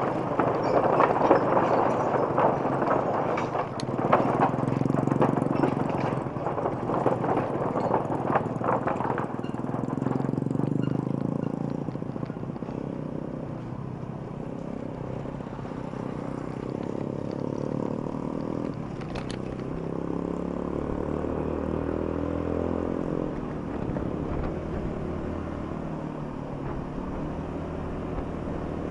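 Road traffic: motor vehicles passing with a clattering rattle for the first nine seconds or so, then a single engine running steadily and slowly rising in pitch.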